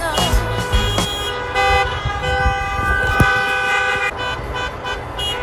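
Several car horns honking at once, overlapping long blasts at different pitches, with a short break about four seconds in before they start again.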